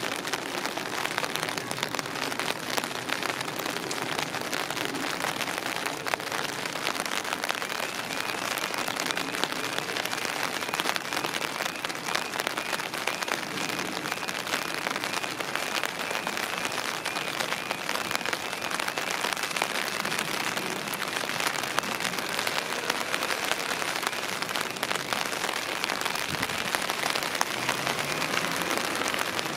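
Steady rain hiss throughout. About a third of the way in, a level crossing's warning alarm starts, a faint rapidly repeating tone under the rain, while the road lights flash and the barriers come down.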